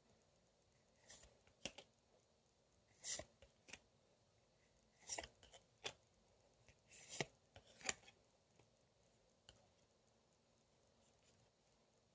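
Glossy photocards slid one at a time off a stack and moved to the back, each giving a short swish or snap of card against card, about one every second, with quiet between. The sliding stops a couple of seconds before the end.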